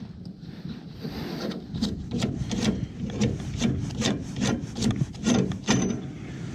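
Rhythmic scraping strokes, about three a second, of a wrench working a threaded gas pipe fitting loose, metal grinding over old pipe dope.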